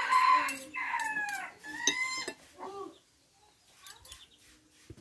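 A rooster crowing: one long call over the first second and a half that falls in pitch at its end, then a few shorter calls up to about three seconds in.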